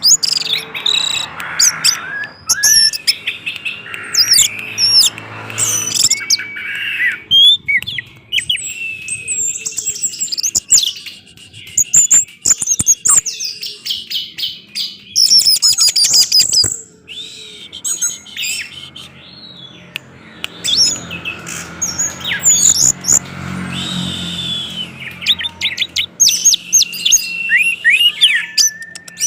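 Orange-headed thrush singing a long, rapid, varied song of quick gliding whistles and chirps, in dense runs broken by short pauses.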